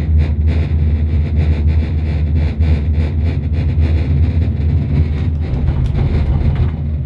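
Background electronic dance music with a heavy, distorted bass and a steady beat.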